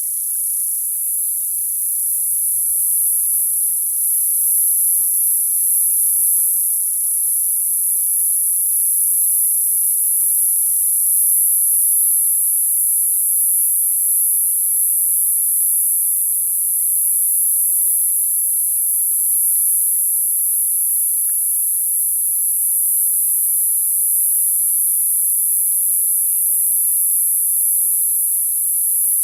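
A chorus of cicadas buzzing in one continuous, steady high-pitched drone.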